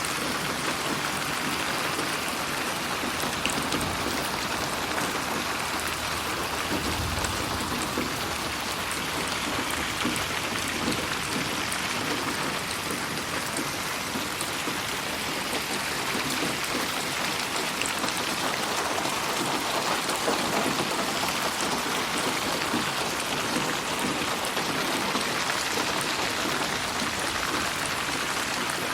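Steady rain falling, a dense even hiss of drops with fine scattered pattering, processed in 8D audio so it seems to move around the listener's head.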